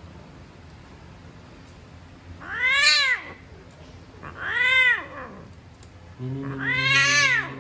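Cat yowling three times during mating. Each drawn-out call rises and then falls in pitch, and the last is held over a lower, steady moan.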